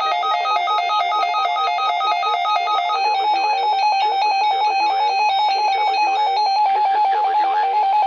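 Weather radio's electronic alert alarm for an Emergency Alert System monthly test: a rapid two-pitch warble that changes about three seconds in to a single fast-pulsed beeping tone.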